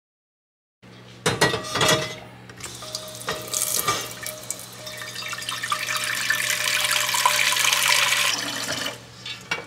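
Tap water running into an enamelled pot in a stainless steel sink, filling it. A few clunks come about a second in, then the rush of water grows louder as the pot fills and stops near the end.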